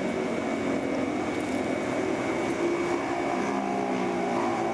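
Steady mechanical drone with several held low tones, like an idling engine; some of the tones shift a little about three seconds in.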